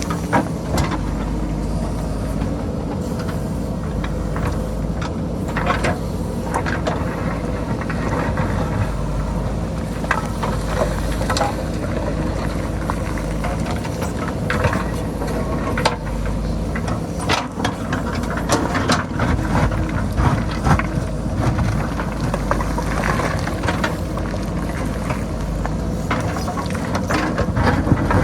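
JCB backhoe loader's diesel engine running steadily under load as the bucket digs into rocky hillside, with frequent knocks and clatters of rocks and stones scraping and tumbling.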